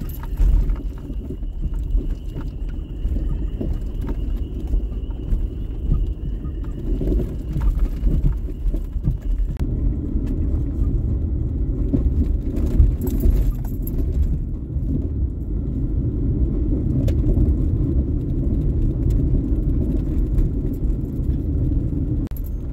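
Car driving slowly over a rough, rocky dirt trail, heard from inside the cabin: a steady low rumble of tyres and suspension with scattered knocks and rattles. A thin steady high tone runs through the first part and stops a little before the middle.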